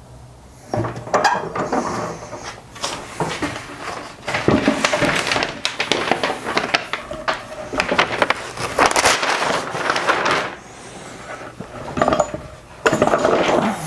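Wood being worked with hand tools: a run of irregular scraping strokes and sharp knocks starting about a second in, pausing briefly near the end.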